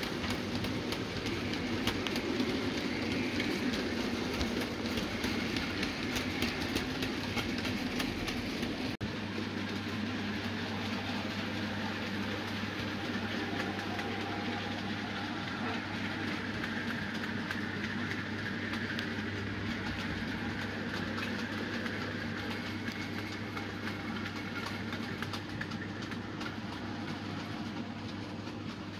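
OO gauge model freight train running along the track: a steady rolling rumble with rapid clicking of the wagon wheels over the rail joints. After a break about nine seconds in, a steady low hum runs under the rolling sound.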